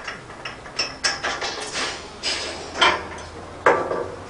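Hammer blows on steel scaffolding tubes and clamps, a run of irregular metallic knocks, each ringing briefly: the scaffold being knocked apart.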